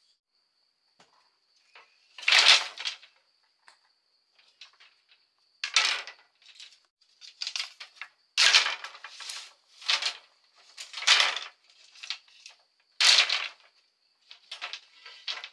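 Irregular knocks and scrapes of hand-tool work on wood, about a dozen strokes at uneven intervals, each brief and sharp. Under them runs a steady, thin, high-pitched insect drone.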